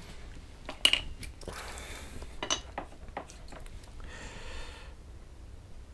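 Bench handling sounds: a few sharp clicks and clinks as a small flux tin, its brush and a soldering iron are picked up and set down, the loudest about a second in, with short scraping rustles in between.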